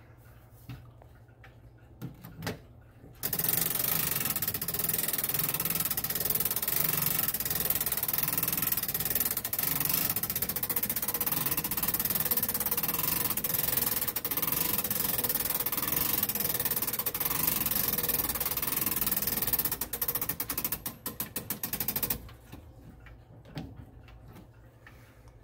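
Howard Miller Haverhill triple-chime grandfather clock being wound: a loud, fast, steady ratcheting clatter as the cable-driven weights are drawn up. It breaks into separate clicks near the end and stops, leaving the clock's faint tick.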